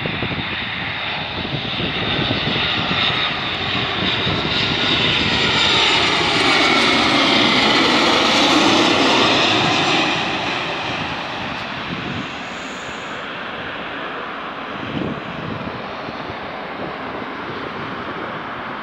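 Boeing 737-800 on final approach with landing gear down, passing low overhead: its CFM56-7 turbofan engines grow louder to a peak about halfway through, with a whine that falls in pitch as the jet goes past. After that it fades to a steadier, quieter engine sound as the airliner moves away.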